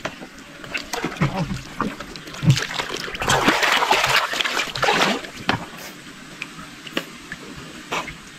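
Water splashing and sloshing as people wade through a muddy pool, loudest from about three to five and a half seconds in, with scattered small splashes and drips.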